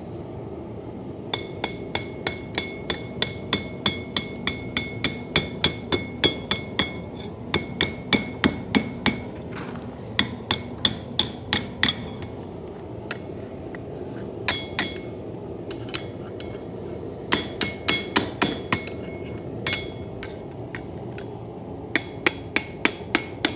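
Hand hammer striking hot coil-spring steel on an anvil, bending the knife's handle. The blows come in quick runs of about two to three a second, broken by short pauses, and each one rings with a clear metallic tone, over a steady low rushing noise.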